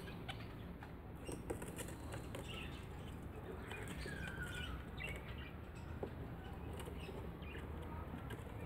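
Budgerigars chirping faintly now and then, with a short gliding whistle about four seconds in, and a bird's wings fluttering.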